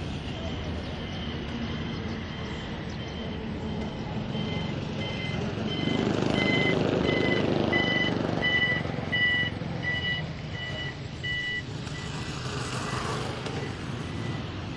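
An electronic warning beeper on a vehicle beeps about twice a second. The beeps grow louder and then stop about three-quarters of the way through, over traffic noise that swells as a vehicle passes in the middle.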